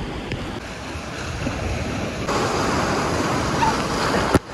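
Ocean surf washing and breaking around a wader in shallow water, with wind on the microphone. The rush of water gets louder a little past halfway and cuts out for an instant near the end.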